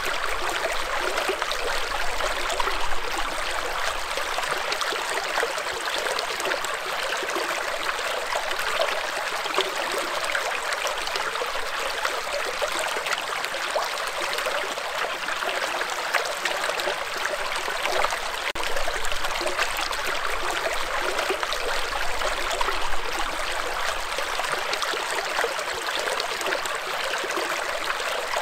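Shallow stream running over and between rocks: a steady rush of water with small splashes and gurgles in the riffles.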